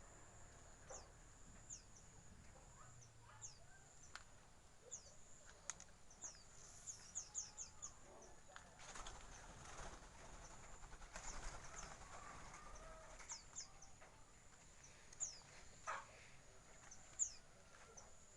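Small aviary birds chirping faintly: many short, high, quick-sweeping chirps at irregular intervals, with brief fluttering of wings around the middle.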